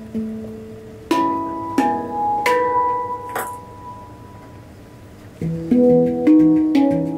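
Handpan (steel hang drum) played with the fingers. A few single notes are struck and left to ring, fading over a quieter stretch. Then a quicker rhythmic run of notes starts about five and a half seconds in.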